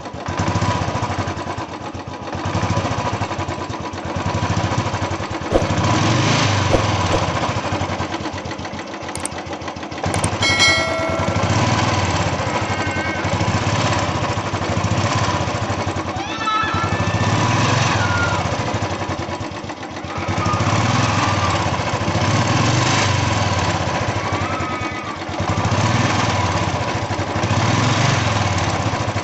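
Royal Enfield Bullet 350 single-cylinder engine running, with the tapping of the valve tappets: a tappet noise problem. Its loudness swells and eases every few seconds.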